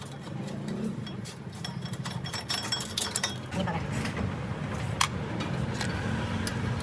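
Light metallic clinks and clicks of tools and brake parts being handled, over a steady low workshop hum; the sharpest click comes about five seconds in.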